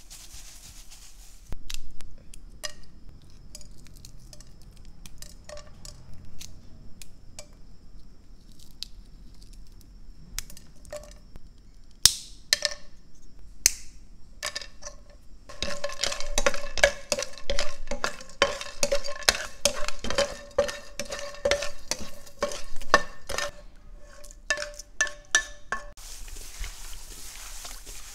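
Dried whole spices (black cardamom pods and a cinnamon stick) clicking and clinking against a pan: scattered taps at first, then about ten seconds of dense, rapid rattling with a ringing metallic tone, as when the spices are stirred in the dry pan.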